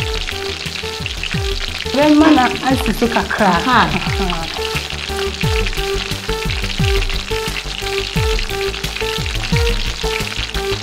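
Chicken pieces frying in oil in a non-stick pan, a steady sizzle. Background music with a repeating melody and falling bass notes plays over it. The music swells with a louder wavering, voice-like passage about two seconds in.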